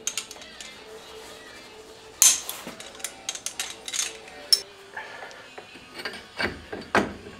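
Metal clicks and clinks of a torque wrench and socket on the differential cover bolts of a Ford 8.8 rear axle, the sharpest click about two seconds in. Near the end come two heavier metal clunks as a driveshaft's U-joint is seated into the pinion yoke.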